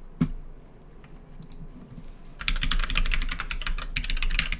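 Typing on a computer keyboard: one sharp click just after the start, then a fast burst of keystrokes for about two seconds in the second half.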